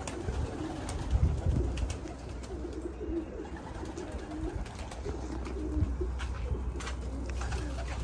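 Domestic pigeons cooing over and over, with a steady low rumble underneath and a few faint clicks.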